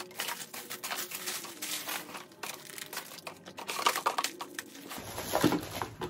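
Plastic fidget-toy packaging crinkling and rustling as it is handled, a dense run of quick crinkles that stops about five seconds in.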